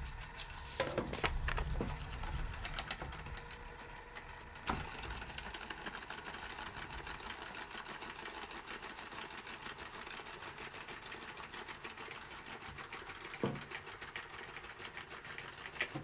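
Tesvor X500 robot vacuum moving under its own power in recharging mode, its small drive motors giving a fast, even ticking whir, with a few knocks in the first couple of seconds. The motor sound cuts off abruptly at the very end.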